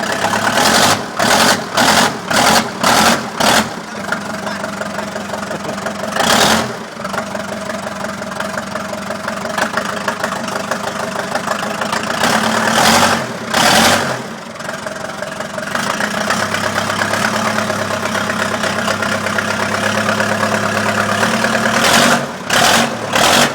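Case backhoe's diesel engine running steadily, broken by short loud bursts of noise, a quick run of them near the start and again near the end, with a few more in the middle.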